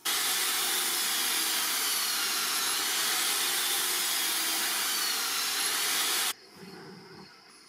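Handheld electric belt sander running on a steel sword blank, the belt grinding across the metal in one steady, loud, even noise that breaks off abruptly about six seconds in.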